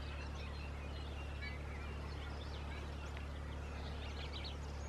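Wild birds calling: many short chirps and whistles, scattered and overlapping, over a steady low hum.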